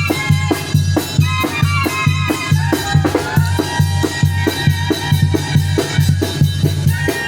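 Tamborazo band music from Zacatecas: a tambora bass drum beats a steady, quick rhythm under brass and saxophone melody lines and a sustained low bass line.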